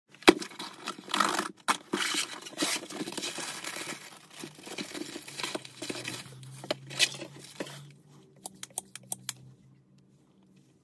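A plastic bag crinkling and a cardboard box rustling as a hand-pump sink tap is unpacked, with sharp crackles throughout. About eight seconds in it thins to a few light clicks as the tap is handled.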